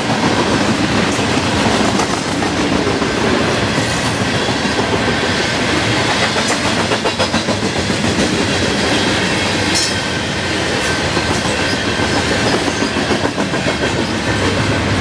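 Freight train of tank cars rolling past close by: a steady loud rumble and rattle of steel wheels on the rails, with scattered clicks as the wheels run over rail joints.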